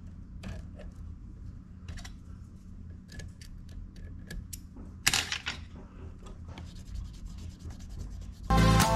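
Hands and tools on a thread-wrapped fishing rod blank: small clicks and scratchy rubbing as a thread end is trimmed with small snips and a tool is rubbed along the wrap, with a louder scrape about five seconds in, over a steady low hum. Music comes in near the end.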